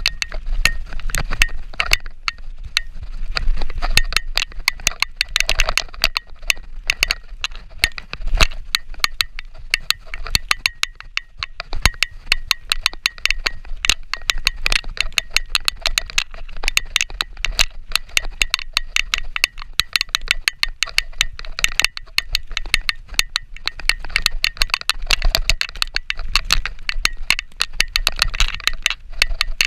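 Mountain bike rattling over rough, grassy singletrack on a fast descent: a dense, constant run of clicks and clatters from the bike's chain and parts jolting over the bumps, with a steady low rumble underneath.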